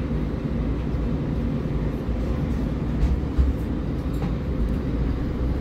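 MAN Lion's City Ü city bus running: a steady low drone, with two short thumps about three seconds in.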